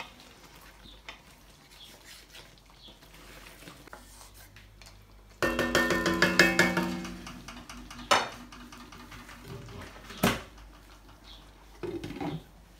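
A wooden spatula stirs and scrapes chicken in a metal karahi wok, then taps quickly against the pan for about two seconds, the metal ringing, followed by two single knocks. Near the end a glass pan lid clatters onto the wok.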